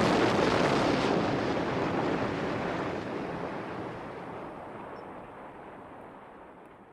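Rushing noise wash at the tail of the music soundtrack, fading slowly to silence over about seven seconds.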